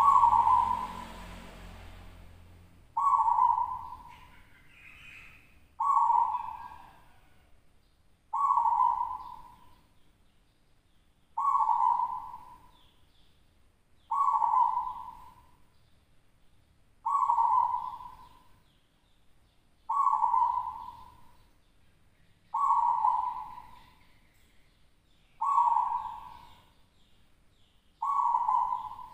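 Local zebra dove (perkutut) cooing its song, about eleven times. Each is a short, low phrase that starts sharply and fades, repeated roughly every three seconds.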